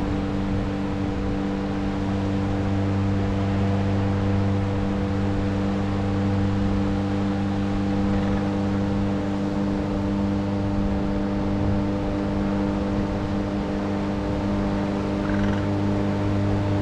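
A machine running steadily, its low hum holding one unchanging pitch, over a steady background hiss.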